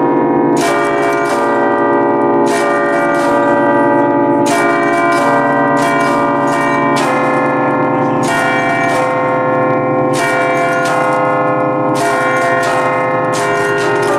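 A concert of eight church bells in B-flat, cast by Luigi and Giorgio Ottolina of Seregno in 1949, rung from a baton keyboard in the festive style. Strikes come in quick succession, each bell's tone still ringing under the next.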